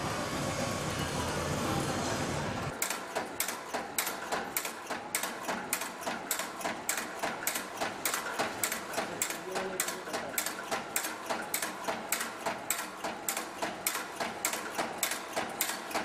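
Automatic packing-clip making machine running, its mechanism clacking in an even rhythm of about three strokes a second as it forms clips. For about the first three seconds a denser, steadier mechanical rumble covers it, then stops abruptly.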